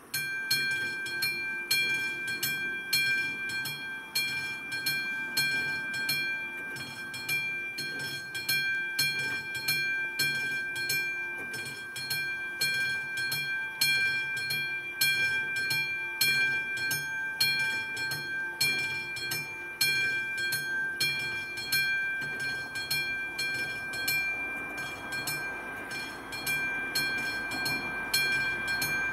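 Electronic warning bell of an AŽD 71 level crossing ringing in rapid, evenly repeated strokes. It starts abruptly as the warning lights switch on, signalling an approaching train. The rumble of the train grows in over the last few seconds.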